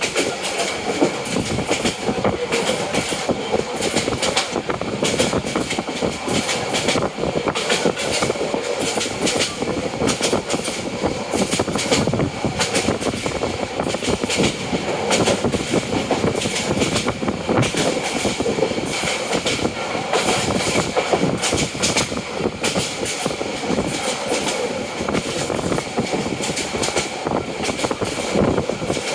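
Train running along the track: a steady rumble with dense, irregular clicking and clattering of the wheels on the rails.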